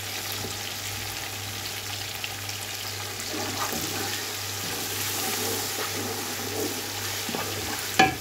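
Onion and tomato masala frying in oil in a nonstick pot: a steady sizzle and crackle, with a wooden spoon stirring and scraping through it. A sharp knock near the end.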